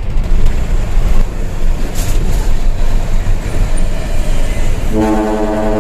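Hino Ranger dump truck's diesel engine and road noise as a steady low rumble. About five seconds in, a trumpet-style air horn sounds one held blast that runs on past a second.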